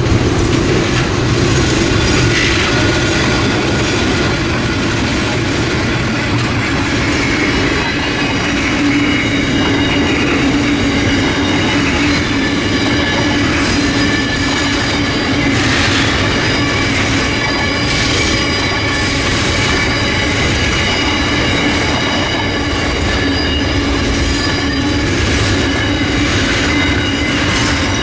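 A freight train passing close by: two Pacific National NR-class diesel-electric locomotives, then a long rake of container wagons rolling on the rails. Wheel squeal runs through it as several high, steady tones.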